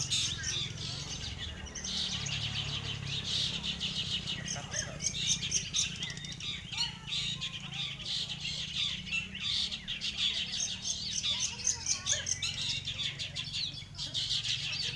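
Long-tailed shrike (cendet) singing a fast, unbroken chatter of high notes, thinning briefly about two seconds in and near the end.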